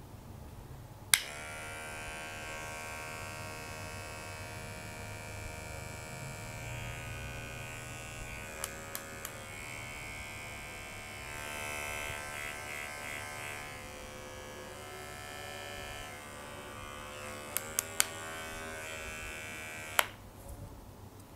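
Kiki New Gain NG-110 cordless metal-bodied hair clipper, its rotary motor rated at 6500 RPM, switched on with a click about a second in. It runs with a steady electric buzz, broken by a few light clicks about halfway and again near the end, and is switched off with a click about a second before the end. The reviewer judges its vibration somewhat weak, which he puts down to its heavy body.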